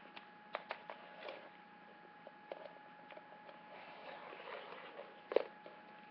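Light, scattered clicks and taps of small plastic toy figures and pieces being handled and set down, with a soft rustle shortly before the loudest tap, about five seconds in. Under them runs a faint steady high hum.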